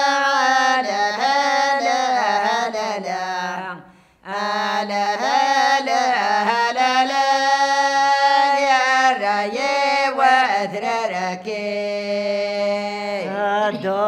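A woman singing acawwiq, the unaccompanied Kabyle vocal style: one voice holding long, ornamented notes that waver in pitch, with a short pause for breath about four seconds in.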